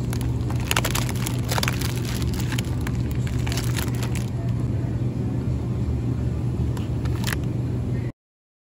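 Steady low hum of a supermarket's chilled display aisle, with plastic food packaging crinkling and rustling as a pack of sliced ham is handled, mostly in the first half. The sound cuts off suddenly near the end.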